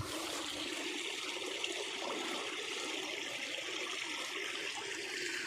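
Water of a shallow stream running steadily, a continuous trickling hiss.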